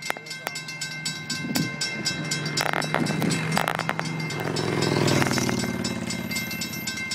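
Railroad crossing signal bells ringing in a steady, rapid strike while the crossing gates lower. About four to six seconds in, a car passes, its road noise swelling and dropping in pitch.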